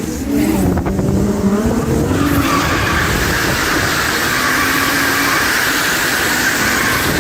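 Drift car at the limit: the engine's pitch swings up and down, then about two seconds in a steady tyre squeal sets in and holds as the car slides sideways.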